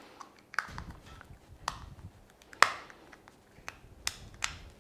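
Screwdriver turning the cover screw of a plastic 13 amp three-pin plug: a string of small irregular clicks and ticks, with one sharper click about two and a half seconds in.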